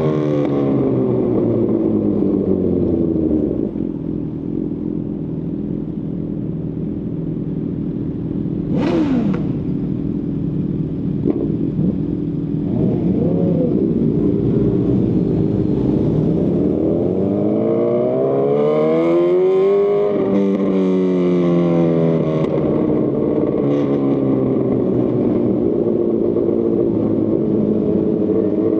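2018 Honda CB1000R's inline-four engine through a Lextek CP1 full exhaust, heard from the rider's seat. The engine slows at first, runs fairly steadily, then revs up hard to a peak about twenty seconds in, eases off, and picks up again near the end. A brief sharp noise comes about nine seconds in.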